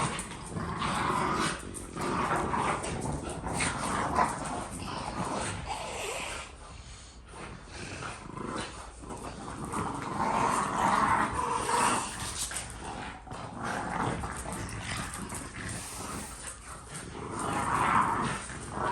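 Dogs growling during rough play, in uneven bursts with a quieter stretch in the middle.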